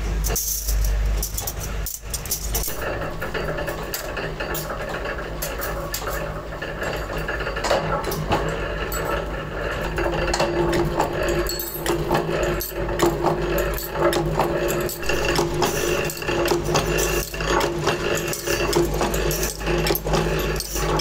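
Metalworking machinery running, with irregular clattering and clicking of metal parts over a steady low hum; a steady machine tone joins about halfway through.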